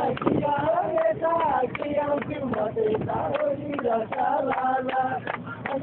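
A voice singing a melody with held, wavering notes, over music.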